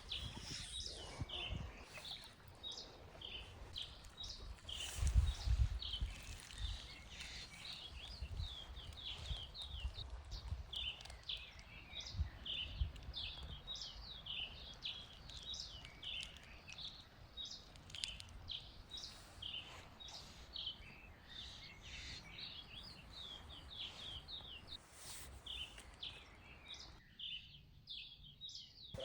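A chorus of small birds chirping and singing in many short, rapid calls, with low rumbling bumps now and then that are loudest about five seconds in.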